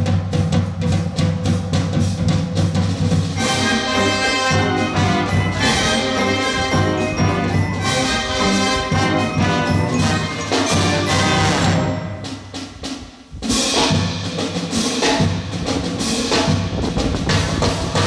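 Marching band playing: drums beating steadily, with brass coming in about three seconds in. The music drops out briefly past the middle and then starts again, over a low rumble of strong wind on the microphone.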